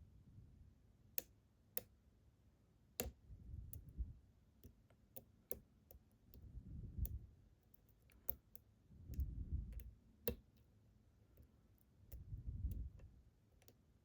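Lock pick and tension wrench working in a Ruko 600 padlock: scattered sharp metallic clicks and ticks, with low rumbling rubs from handling the lock every few seconds.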